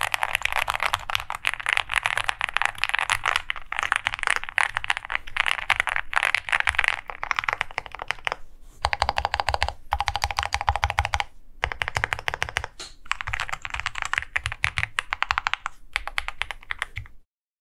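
Fast typing on a custom mechanical keyboard: an OwLab Spring with lubed Alpaca linear switches, an FR4 plate and Cherry-profile PBT keycaps. It gives a dense run of keystroke clacks broken by a few short pauses, then cuts off suddenly near the end.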